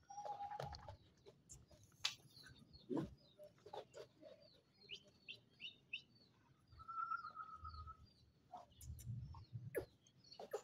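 Faint small birds chirping: a quick run of short high chirps about halfway through, with a few scattered clicks and knocks around them.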